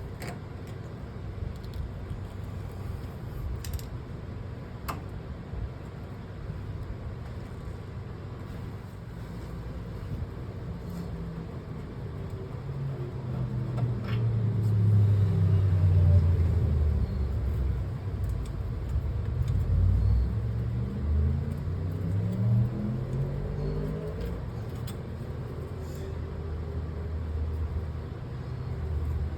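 A motor vehicle engine running over a steady low rumble. Its pitch rises and falls a few times through the middle, where it is loudest, with a few faint clicks.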